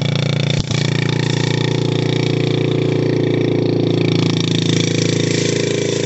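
Small dirt bike engine running at steady revs, its pitch holding almost constant, with a brief dip about half a second in.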